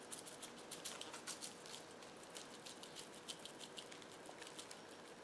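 Spice shaker of AppleWood rub being shaken over raw baby back ribs: a faint, rapid patter of rub grains hitting the meat and rattling in the shaker, thinning out in the second half.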